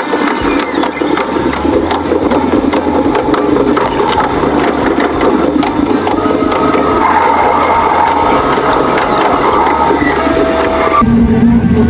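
Hankyu electric train running, heard from inside the front car: a dense, rapid rattling and clattering, with steady motor whine tones from about six to eleven seconds in. About a second before the end it cuts abruptly to background music.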